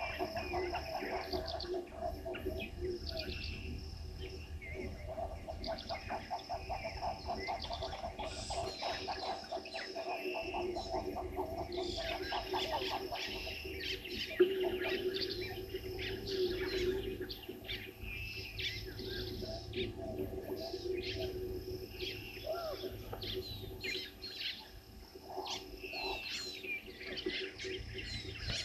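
Many wild birds calling and chirping over one another, with a fast run of evenly repeated notes from about five to thirteen seconds in and a low steady hum underneath. One sharp tick about fourteen seconds in is the loudest sound.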